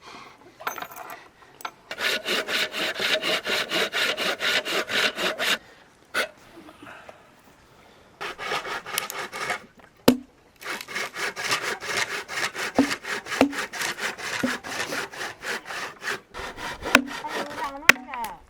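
Wood being sawn by hand in quick, even strokes: two long runs with a shorter one between them, and a few single sharp knocks.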